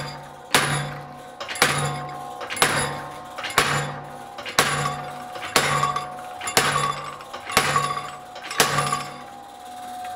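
Treadle hammer blows, about one a second, driving hot steel into a closed mouse-shaped die. Each strike rings metallically as the die impression is sunk deeper.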